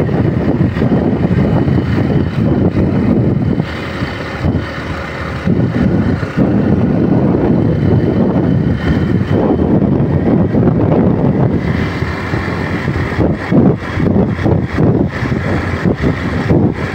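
Motorcycle riding along at speed: wind rushing over the microphone mixed with engine and road noise, easing briefly about four seconds in.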